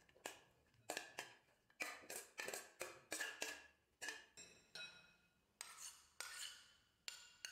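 Light, irregular clinks and taps of a steel spoon and steel dishes against a glass bowl as chopped vegetables are tipped and scraped into it; some strikes ring briefly.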